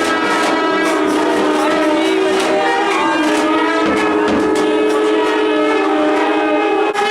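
Nadaswaram and thavil temple music: a loud double-reed pipe plays a held, gliding melody over a steady drone, with frequent thavil drum strokes, and a brief break near the end.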